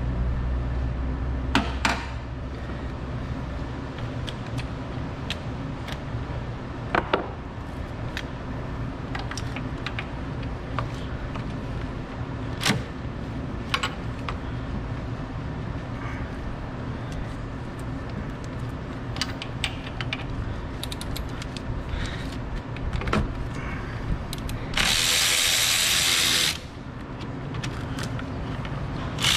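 Metal tools clinking against one another and the engine, over a steady low hum. About 25 seconds in, a cordless electric ratchet runs for about a second and a half, spinning out an alternator mounting bolt.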